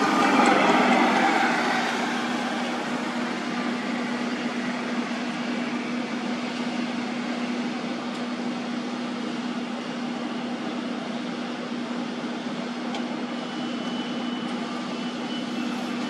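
A steady mechanical hum, one constant low tone under a continuous hiss of outdoor noise, louder for the first two seconds and then even.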